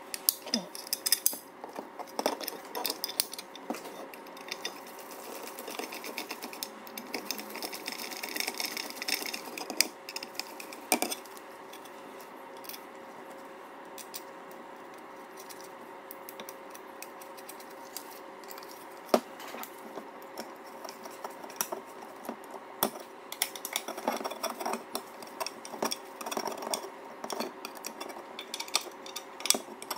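Small M4 screws, washers and nylock nuts clinking and rattling as they are handled and fitted into frame parts, with scattered sharp clicks and light scraping. The handling goes quieter for a stretch midway, then picks up again near the end.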